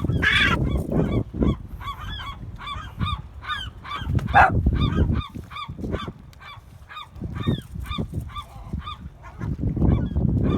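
A bird calling over and over in short calls, two or three a second, over a low rumbling noise; the calls thin out briefly past the middle.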